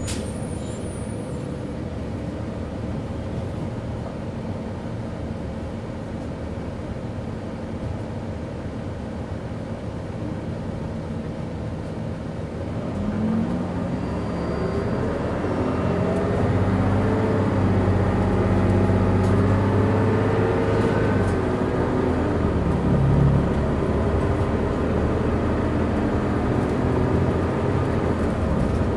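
2011 Gillig Low Floor BRT transit bus with a Cummins ISL diesel engine running low and steady, then about 13 seconds in pulling away: the engine grows louder and rises in pitch, stepping as the Allison B400R automatic transmission shifts up, and settles to a steadier tone near the end.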